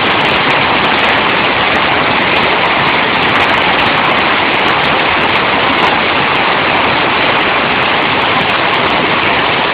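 Hailstones pelting down in a dense, steady roar, with many sharp ticks of individual stones striking hard surfaces, heard through a mobile phone's microphone.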